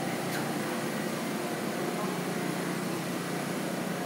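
R143 subway train moving slowly past an elevated platform: a steady running noise of wheels on rail and traction equipment, with a faint steady hum and a light click about a third of a second in.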